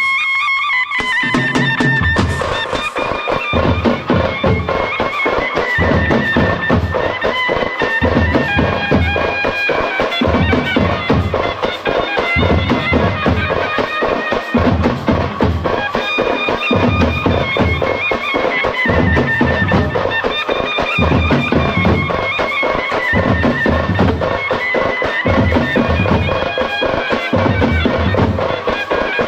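Traditional Indian festival music: a shehnai playing a wavering melody over a steady pattern of drum beats.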